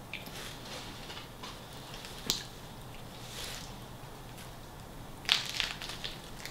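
Close-miked eating of a BMT sub on hearty Italian bread: wet mouth clicks and soft crunching as it is bitten and chewed, with a sharp click about two seconds in and the loudest burst of crunching a bite about five seconds in.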